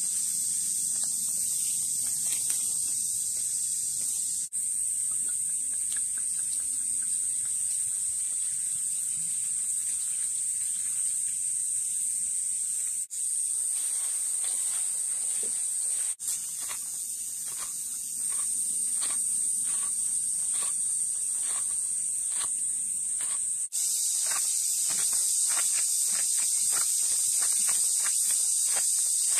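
Insects buzzing in a steady, high-pitched drone. From about halfway on it is joined by soft, quick rustling clicks from hand-mixing.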